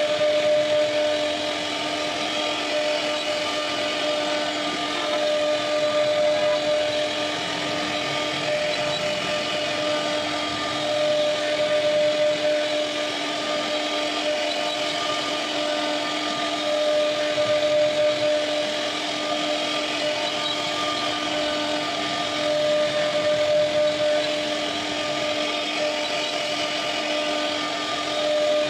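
CNC router spindle running with a steady whine as its bit carves a wooden door panel, getting louder about every six seconds.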